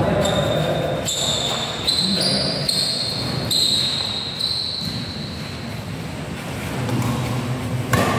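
Badminton players' shoes squeaking on the court floor in several short squeaks over a few seconds, then a sharp crack of a racket hitting the shuttlecock near the end, with voices in an echoing hall.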